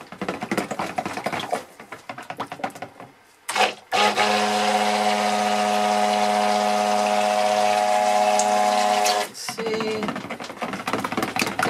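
Stick blender motor running at a steady pitch for about five seconds, from about four seconds in, blending cold-process soap batter. Before and after it the blender head clicks and scrapes against the bowl as it is stirred through the batter.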